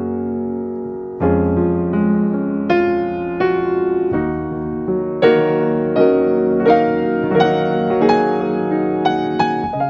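Background music: a gentle piano melody with sustained chords, notes struck about twice a second.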